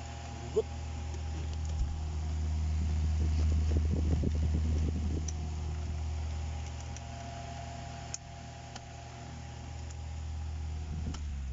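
A steady low mechanical hum that grows louder over a couple of seconds in the middle and then eases back, with a few light clicks.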